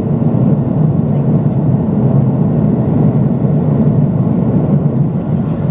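Steady low rushing cabin noise of an Airbus A330-300 airliner in flight, engine and airflow noise heard from inside the passenger cabin while descending toward landing.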